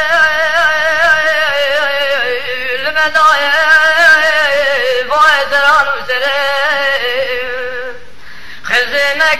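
Kurdish dengbêj singing: a single male voice singing a long, heavily ornamented melodic line with quavering pitch. It breaks off briefly about eight seconds in, then takes up again.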